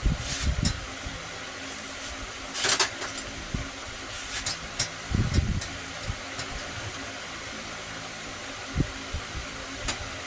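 A small electric fan running steadily over a low mains hum, with scattered short knocks and clicks, the loudest a brief crackle about two and a half seconds in.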